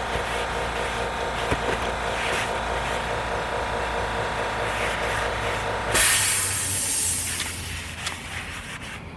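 A steady mechanical hum made of several tones. About six seconds in it stops abruptly and a loud hiss takes over, fading away over about two seconds.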